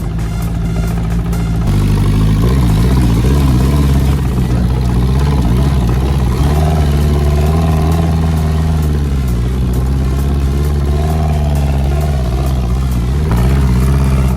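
Dune buggy engine running hard, its pitch dipping and climbing back several times as the throttle changes.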